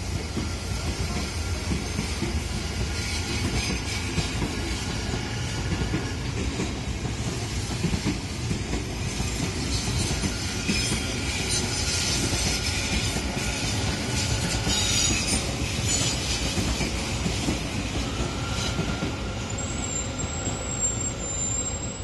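An Odakyu Romancecar MSE (60000 series) electric train running slowly over the crossing with a steady rumble of wheels on rail and squeals from the wheels, in stretches throughout and a high thin squeal near the end.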